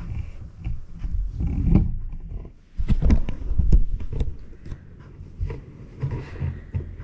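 Handling noise on the recording device's microphone: a low rumble with scattered knocks and clicks as the phone or camera is picked up and repositioned.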